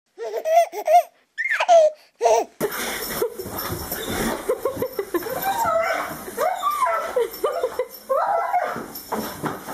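About two seconds of short giggles, then a large shepherd-type dog's excited whining: high, wavering cries that rise and fall over and over, the noise of a dog greeting its returning owner.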